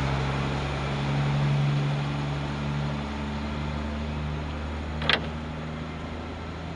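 A vehicle engine running steadily, easing off slightly, with one short, sharp high sound about five seconds in.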